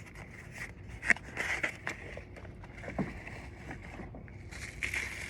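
Hand-handling noise from a car side marker light's bulb socket and wiring: scattered light clicks and scrapes, with one sharper click about a second in.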